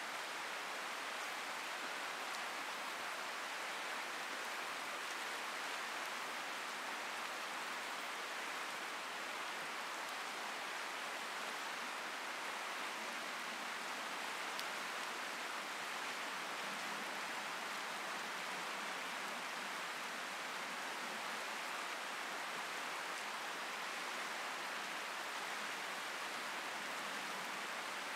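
Steady rush of a fast-flowing river running over riffles.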